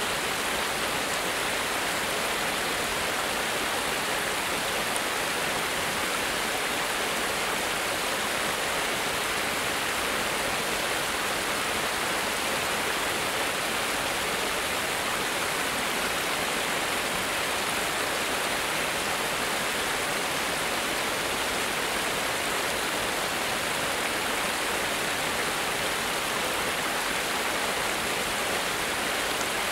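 A small cascade of stream water spilling over a low concrete weir: a steady, even rush of water.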